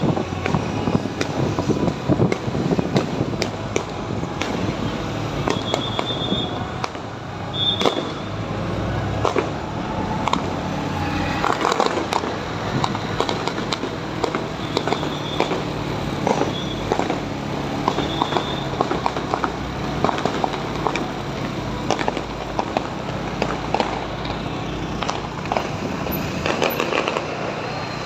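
Fireworks going off in a dense, continuous run of bangs and crackles, with a steady low engine hum underneath.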